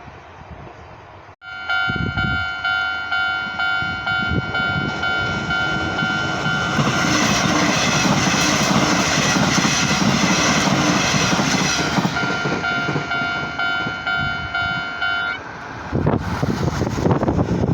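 Japanese level-crossing alarm bell starts suddenly about a second in and keeps sounding its repeating electronic dings at a steady beat. A Nishitetsu train passes through the crossing in the middle, its running noise swelling over the bell for several seconds. The bell stops near the end.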